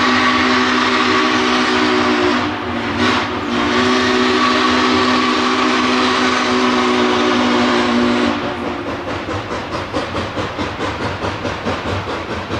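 Spokane, Portland & Seattle 700's multi-tone steam whistle blowing two long blasts, with a short break about two and a half seconds in. The whistle stops about eight seconds in, and the 4-8-4 locomotive's exhaust then chuffs in a quick, even rhythm as it works along the track.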